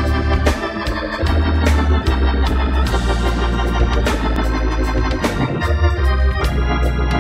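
Hammond drawbar organ playing a gospel song: full sustained chords changing every second or so over a deep bass line, with crisp attacks on the new chords.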